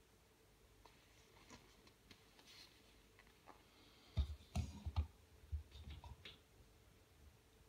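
Scattered faint clicks and taps, with a cluster of louder low knocks about four to five seconds in, like something being handled close to the microphone.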